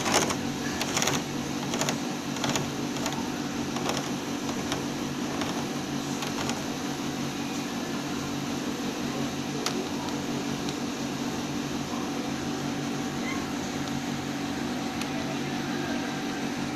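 A domestic cat snoring: a steady low rumble with each breath. A few sharp clicks come in the first few seconds.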